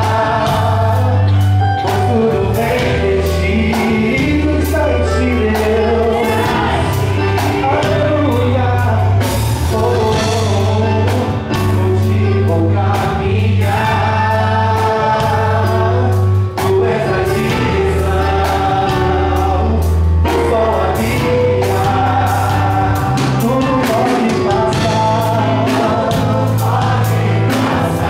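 Live worship band playing a gospel song: a male lead voice sings in Portuguese through the PA with backing vocals, over electric bass, keyboard and drums.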